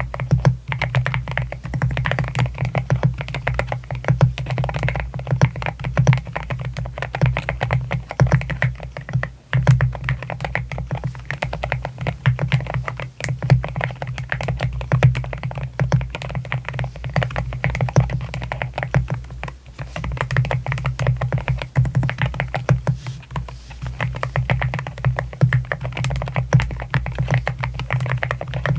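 Fast, continuous typing on an AKKO MU01 mechanical keyboard with a rosewood housing and Akko Rosewood linear switches, a steady stream of keystrokes.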